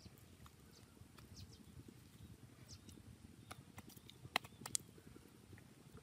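Quiet outdoor ambience with a low steady rumble, faint high chirps and a few sharp clicks, the loudest a little past four seconds in.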